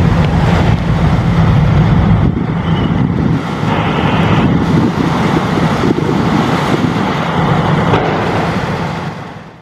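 Diesel engine of a JCB JS220 tracked excavator running. A strong low hum drops away about two seconds in, leaving a rougher, noisier sound that fades out near the end.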